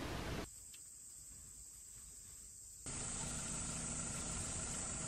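Faint steady high-pitched insect chorus over a low background hiss. The hiss drops away about half a second in and comes back louder a little before three seconds in.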